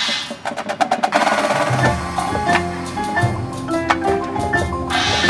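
Marching band opening its competition show: percussion with a quick run of taps, then sustained chords from the band coming in about two seconds in.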